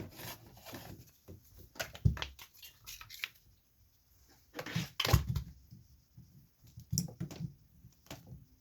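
Items being moved around and cords handled behind furniture: scattered rustling and light knocks, with louder thumps about two seconds in and about five seconds in.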